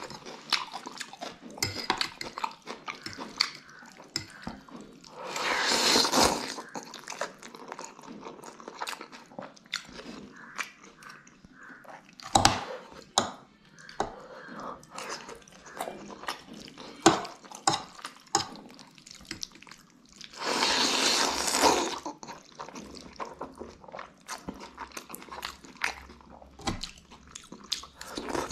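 Close-up mouth sounds of a man eating thukpa noodle soup: wet chewing and smacking clicks throughout, with two longer rushing slurps of noodles and broth, about five seconds in and again about twenty seconds in.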